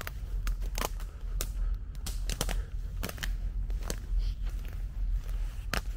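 Footsteps through dry island undergrowth: irregular crackles and snaps of twigs and stems underfoot, about ten in six seconds, over a steady low rumble.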